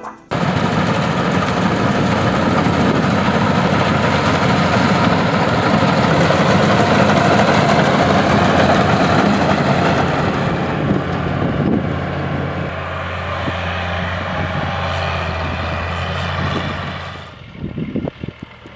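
Paddy combine harvester running: a loud, steady engine drone with a constant low hum under dense mechanical noise, which drops away abruptly near the end.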